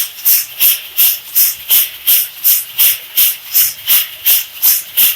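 Coffee beans tumbling and sliding in the drum of a traditional 50 kg coffee roasting machine: a regular, rhythmic hissing swish, about three strokes a second.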